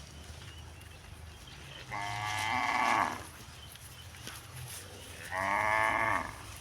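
Cow mooing twice: two calls of about a second each, roughly three seconds apart, each dropping in pitch at the end.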